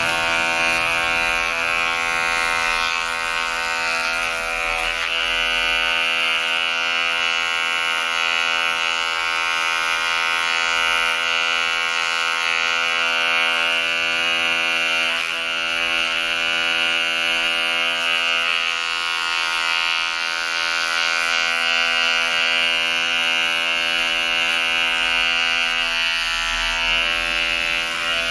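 Electric hair clipper buzzing steadily as it is run over the back of the head and nape, trimming short hair.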